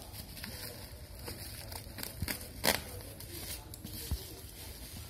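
Plastic parcel wrapping and bubble wrap being cut and torn open by hand, crinkling and crackling irregularly, with one sharp loud crack about two and a half seconds in.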